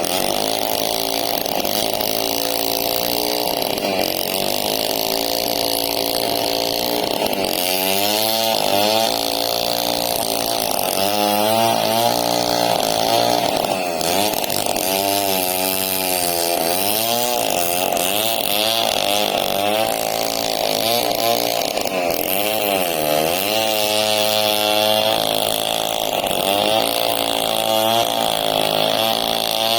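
Two-stroke chainsaw running under load while cutting through a large log, its engine pitch repeatedly sagging and recovering as the chain bites into the wood.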